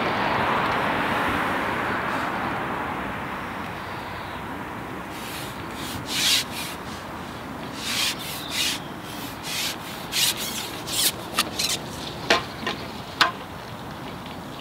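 A fishing pole being drawn back and unshipped: the pole sections rub and scrape through the hands in a string of quick strokes, with a few sharp clicks near the end as sections are handled. A steady rushing noise fades away over the first few seconds.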